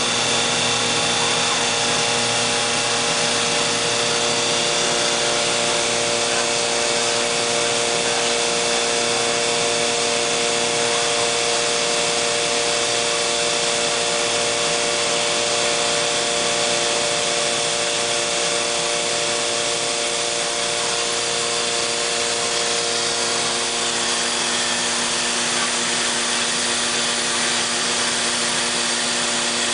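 CNC wood machining center routing a solid-wood door: the spindle and cutter run steadily, a constant whine of several steady tones over a dense hiss.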